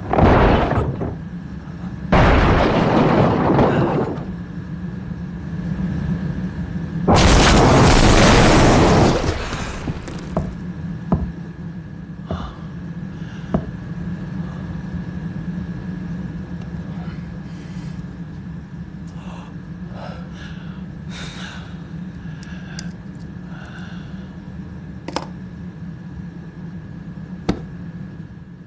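A ship's hull striking reefs, as film sound effects: three loud crashes within the first ten seconds, the last the longest and loudest. After them comes a steady low hum with a faint high tone and scattered small knocks.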